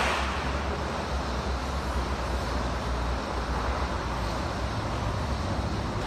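Steady rushing noise with a strong, unsteady low rumble, the sound of air and handling buffeting a phone microphone as its holder walks.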